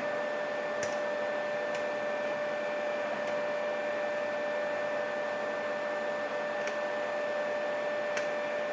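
3D printer running, a steady hum and whine with two held tones. A handful of faint, sharp clicks from a pick setting pins in a lock cylinder come through on top of it.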